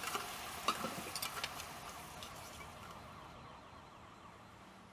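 Kitchen sizzling of food frying, with a few light clinks of dishes and utensils in the first second or so. The sound fades out gradually.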